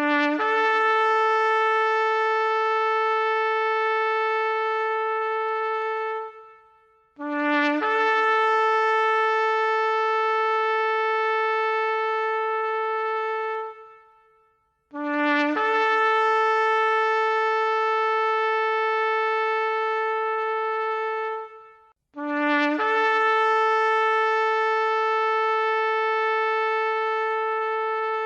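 Shofar (ram's horn) blown in four long blasts, about six seconds each, with a second's pause between them. Each blast starts on a short low note and jumps up to a higher held note that then tails off.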